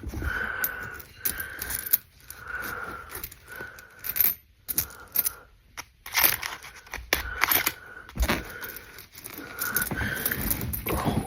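Pennies clinking and rattling against each other as they are counted: a dense run of small metallic clicks, with a brief lull about halfway through.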